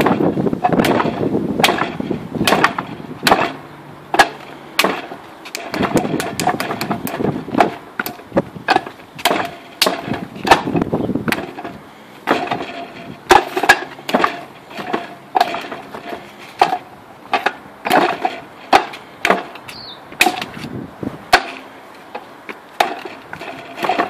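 Hands and forearms striking the wooden arms and trunk of a Wing Chun wooden dummy (mook jong): an irregular run of sharp wooden knocks, often several in quick succession.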